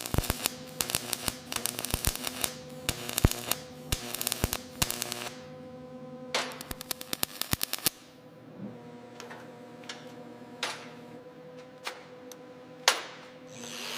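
A run of sharp clicks and taps, dense and quick for the first half and sparser after, over a steady hum.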